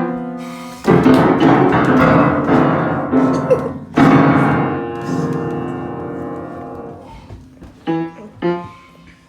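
Piano-type keyboard struck in two loud clusters of many notes at once, about a second in and again about four seconds in, each ringing and slowly fading; a few short notes follow near the end.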